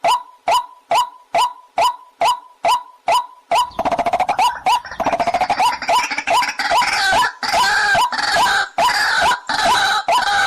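Waterhen (pullakodi) calls repeated in a steady series, a little over two a second. From about four seconds in they swell into a louder, denser stretch of overlapping calls, like several birds calling at once, until near the end.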